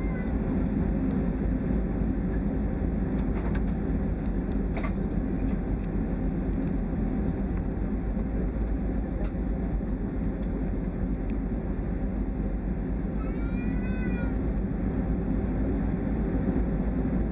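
Steady low rumble of an airliner's cabin noise from its engines and air system while the plane taxis before takeoff. About 13 seconds in comes one short, high call that rises and falls.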